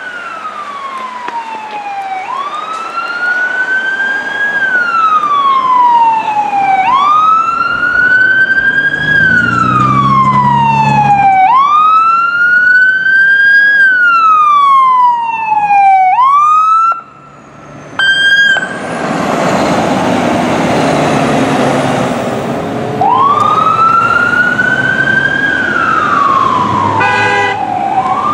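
Fire engine's electronic siren wailing, each rise and fall taking a little over two seconds. About 16 seconds in it switches briefly to a fast yelp. A few seconds of loud, rough blasting follow, then the wail resumes.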